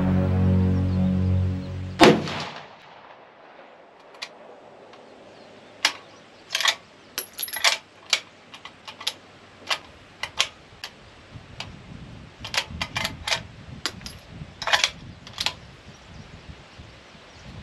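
Music ending about two seconds in with a loud bang, then a string of sharp, irregular cracks, some in quick clusters, over the next twelve seconds: rifle fire at an outdoor shooting range.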